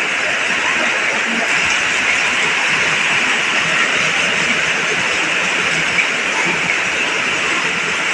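Heavy tropical rain pouring down, a dense, steady hiss of water that holds even throughout.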